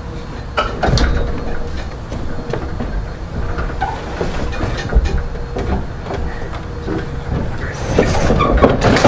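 Low rumbling and clattering of a heavy upright piano being rolled across the floor, with irregular knocks and bumps.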